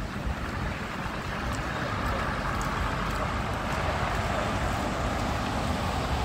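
Outdoor street noise with wind rumbling on the microphone and a broad traffic hiss that swells for a few seconds in the middle, as from a passing vehicle.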